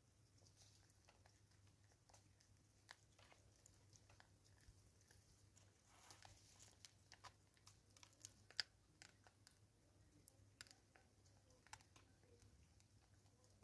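Faint, irregular clicks and crackles of a vervet monkey feeding on seeds, picking them up and chewing them, with one sharper click a little past the middle.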